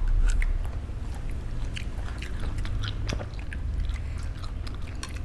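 Chewing a mouthful of tré trộn, a pork salad, with scattered small clicks of the mouth and chopsticks.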